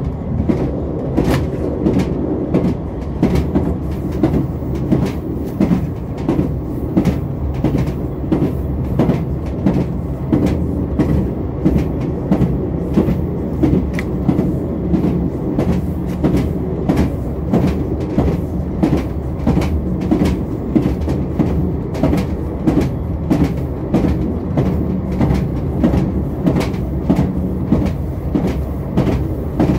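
Passenger train running at speed, heard from inside the carriage: a steady rumble with a frequent, uneven run of wheel clicks over the rail joints.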